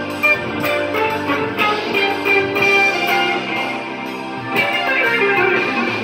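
Electric guitar played through a small amplifier, picking a melodic line of sustained, ringing notes.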